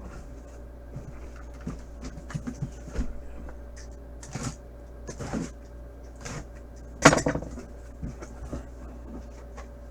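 Cardboard box and packing material being handled while a boxed football helmet is unpacked: scattered rustles and light taps, with one louder knock about seven seconds in.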